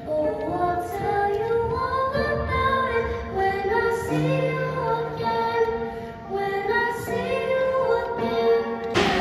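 A girl singing a solo into a microphone over held accompanying notes. Right at the end it breaks off into a sudden loud burst of clapping.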